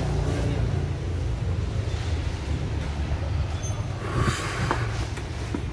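Steady low rumble of street traffic, motorbikes included, with a brief hiss about four seconds in.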